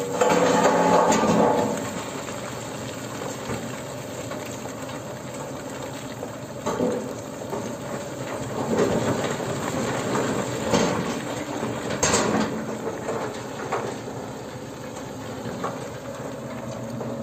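Dump truck tipping a load of stone: rocks sliding and rattling out of the raised bed onto a pile while the truck's engine runs. Louder for the first two seconds, then a steady rumble with a few clatters of falling rock.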